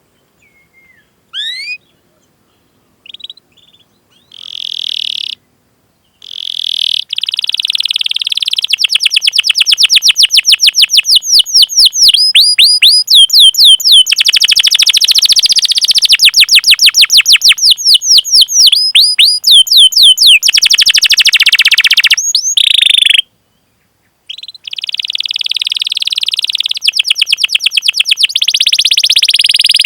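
Domestic canary singing: a few short chirps at first, then long rolling trills of rapid repeated notes, breaking off for about a second a little past two-thirds of the way through before the trilling starts again.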